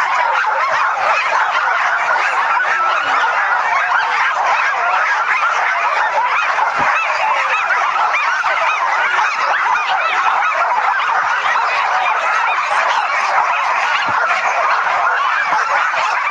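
A team of sled dogs barking and yelping all at once, a dense, loud, unbroken clamour of many overlapping voices: the excited noise of dogs eager to run as the team gets going.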